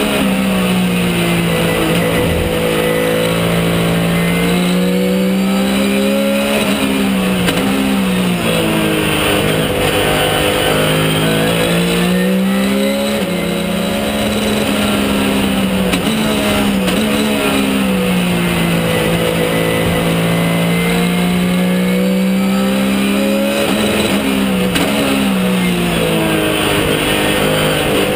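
Porsche 997 GT3 Cup race car's flat-six engine heard from inside the cockpit at racing speed. The revs climb and drop sharply several times with gear changes, and sweep down and back up through the braking and acceleration of the corners.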